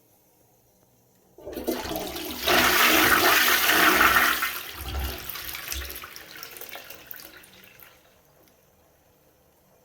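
Toilet flushing: the rush of water starts suddenly about a second and a half in, is loudest for the next couple of seconds, then drains away and fades out over the following few seconds.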